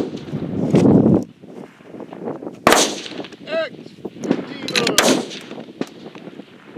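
Target rifles firing on the F-Class line: sharp, separate reports from several shooters, one at the start and the two loudest about three and five seconds in, with fainter shots from farther down the line in between.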